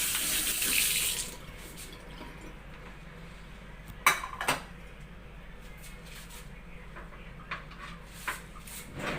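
A short burst of running water from a tap at the start, then a sharp clink of dishes twice about four seconds in and a few faint taps after.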